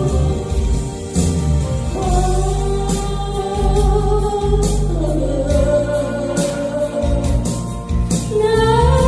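A woman singing a Korean trot song into a microphone over an accompaniment with bass and a regular drum beat, holding long notes with vibrato. Her voice steps up to a higher note near the end.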